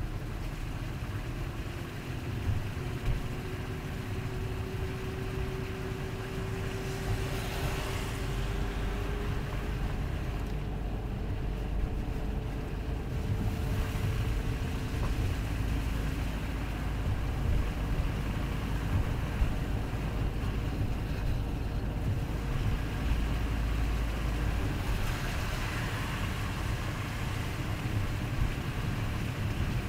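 Car driving on a wet, slushy road: steady road and engine rumble with tyre hiss. The hiss swells louder twice, about a quarter of the way in and again near the end.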